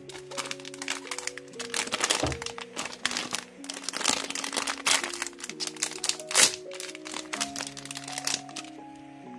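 A plastic snack wrapper holding a mini tiramisu cake crinkling and crackling as it is torn open and handled, in a dense run of sharp crackles that die down near the end. Background music of slow held chords plays throughout.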